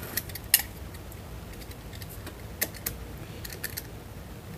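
Scattered sharp clicks and taps of a wooden paint stirring stick being worked with a hand tool, about half a dozen in all.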